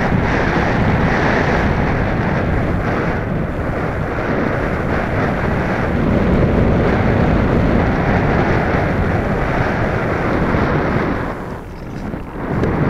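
Steady rush of wind over the onboard camera's microphone as an Easy Glider Pro RC model glider flies and banks. The noise dips briefly near the end.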